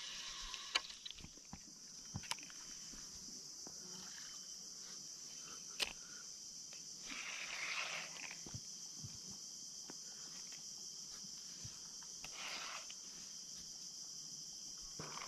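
Steady high-pitched insect chorus from the mangrove river bank, with a few sharp clicks scattered through it, the loudest about six seconds in.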